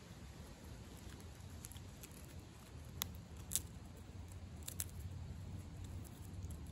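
Striped skunk eating peanuts and seeds from a plate: soft chewing and crunching, with a few sharp cracks in the middle as nuts break.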